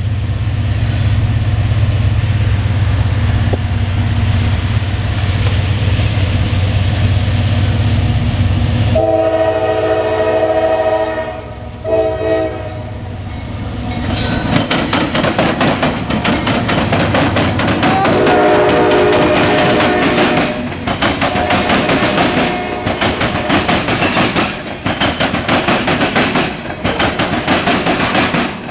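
Norfolk Southern diesel freight train passing: a heavy locomotive rumble, then the air horn sounding a long chord for about three seconds. After that come dense, rapid clattering and banging of the wagons' wheels on the rails, with a shorter, fainter horn chord partway through.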